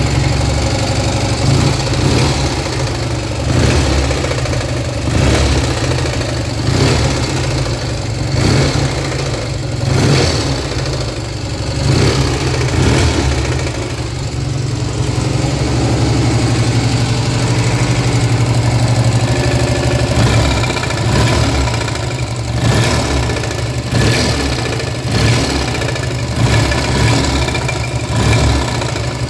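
BSA A65 Star motorcycle's 650 cc parallel-twin engine running, swelling and falling back about every second and a half under small throttle openings, steadier for a few seconds around the middle. The engine noise is the one the owner calls bad, pointing to a mechanical fault that is not named.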